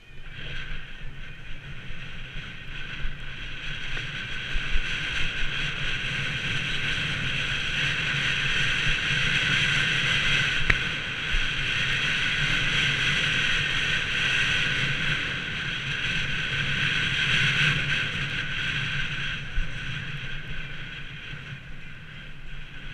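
Wind rushing over an action camera's microphone and ski or board edges scraping across packed, chopped-up snow during a fast run down a groomed slope. It is a steady rushing that grows louder through the middle, with a few sharp bumps, and eases near the end.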